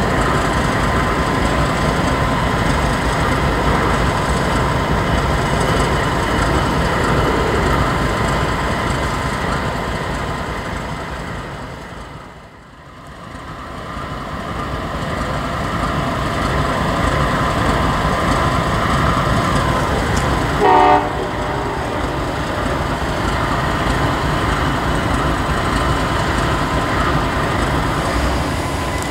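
Diesel freight locomotives running with a steady, heavy rumble. The sound fades out and back in about twelve seconds in. About twenty-one seconds in, a locomotive horn gives one short toot.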